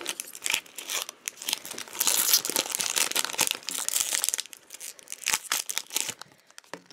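Foil wrapper of a Pokémon trading card booster pack crinkling and tearing as it is pulled open by hand. The crackling is densest and loudest from about two to four seconds in, then thins to a few light crinkles near the end.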